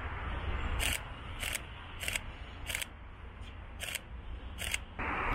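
A camera shutter firing about six times in a steady series, roughly one frame every half second or so, over a low steady background hiss that grows louder near the end.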